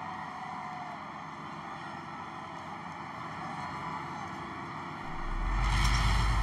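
Din of a large crowd, a steady wash of voices that swells sharply about five seconds in, with a deep rumble coming in underneath.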